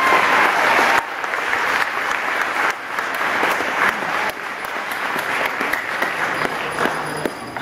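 Audience applauding, loudest in the first second, then dropping and carrying on more quietly until it fades near the end.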